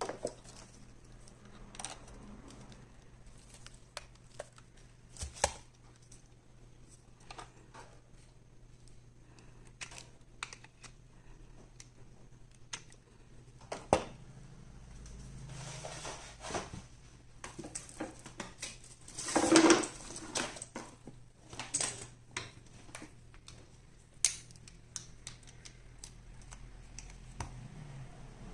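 Packaging and a boxed device being handled: scattered clicks, taps and rustling, with a louder rustle about two-thirds of the way through.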